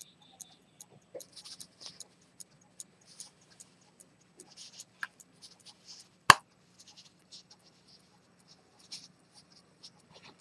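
Cloth rubbing and scratching against the gold case of a key-wound detent-chronometer pocket watch. Under it the watch ticks faintly and regularly, a few times a second. One sharp click comes a little after six seconds in.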